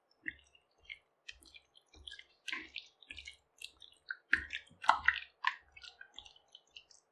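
A bare hand squishing raw boneless chicken pieces through a thick curd and spice marinade in a bowl: irregular wet squelches and clicks, loudest about four to five seconds in.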